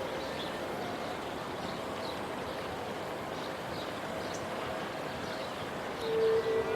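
City park ambience: a steady hum of distant traffic with faint, scattered high chirps. About six seconds in, a steady mid-pitched tone, like a distant siren, comes in and grows louder.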